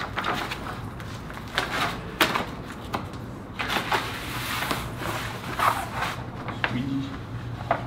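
Large paper-backed vinyl stencil sheet being handled, peeled back and smoothed by hand on a concrete floor: irregular rustling and crinkling with short sharp swishes about every second. A steady low hum runs underneath.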